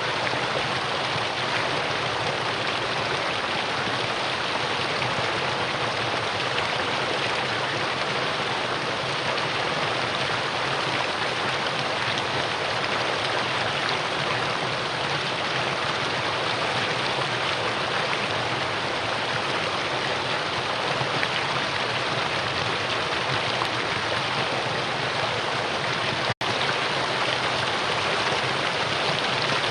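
Mountain valley stream rushing over rocks, a steady, even flow of water. Near the end the sound cuts out for a split second, then resumes.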